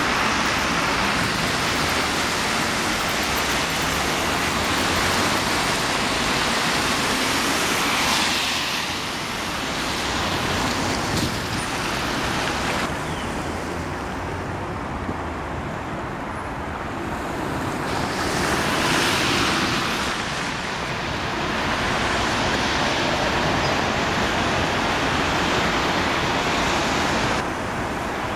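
Steady road traffic on wet asphalt: a continuous hiss of tyres and running engines, with a vehicle passing close about eight seconds in and another about nineteen seconds in.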